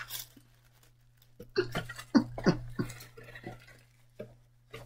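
Paper wrapping rustling and crinkling as it is handled and unfolded, with a quick run of sharp crackles about halfway through and a couple more near the end.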